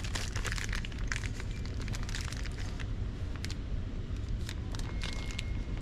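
Crackling and clicking as packaged cabinet knobs and hinges are handled, over a steady low rumble. A short beep comes near the end.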